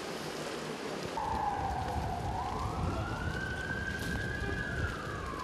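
An emergency vehicle's siren wailing: starting about a second in, its pitch dips, rises slowly, holds high, then falls again near the end. Steady rain and a low traffic rumble run underneath.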